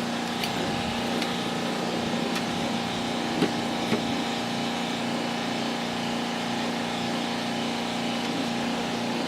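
A steady mechanical hum with a few short clicks and knocks over it, two of them louder about three and a half and four seconds in.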